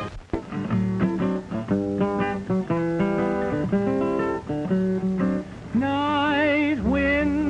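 Acoustic guitar picking a slow, plucked introduction to a western ballad. About six seconds in, a long held note with a slow waver joins over the guitar.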